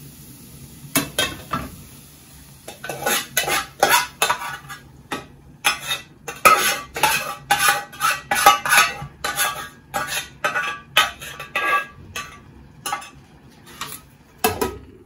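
Metal spoon clinking and scraping against a cooking pot as stew is stirred, in a quick irregular run of knocks that is busiest in the middle of the stretch.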